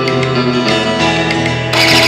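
Background music: a guitar-led song with strummed and plucked guitar and a steady beat, no vocals.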